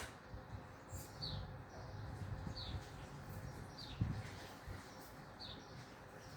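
A bird repeating a short, high, falling chirp four times, about one and a quarter seconds apart, over a low, uneven background rumble, with a dull thump about four seconds in.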